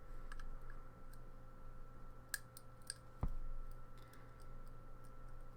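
Faint, scattered small clicks of pin tumblers and springs being handled as a pin tumbler lock is taken apart, with one soft knock about three seconds in, over a faint steady hum.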